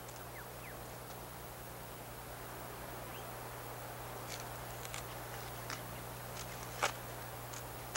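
Faint outdoor ambience over a steady low hum, with a few short scratchy clicks from about four seconds in, one of them louder near seven seconds.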